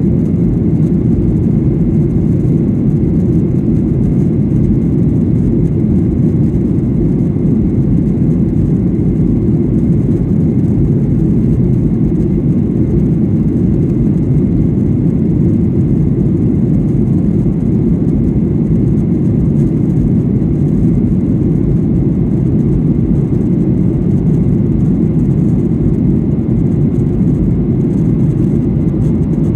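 Cabin noise inside a Boeing 737-800 during its climb after takeoff: the CFM56 jet engines and rushing air make a steady, low rumble that does not change.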